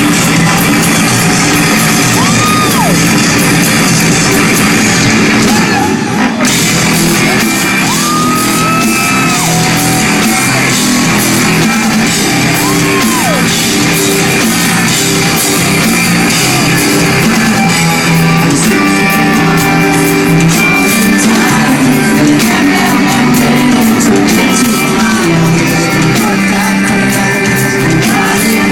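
Rock band playing live in a concert hall, with singing and yelled vocals over continuous loud music.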